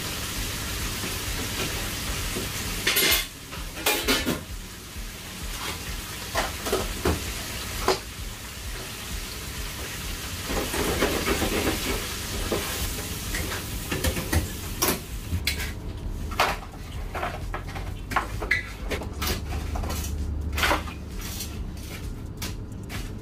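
Food sizzling steadily in hot oil, with sharp clicks and clanks of metal tongs against pans and trays that come more often toward the end.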